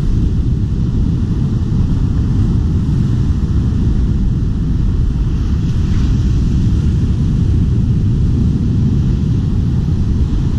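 Wind buffeting the camera's microphone: a loud, steady low rumble.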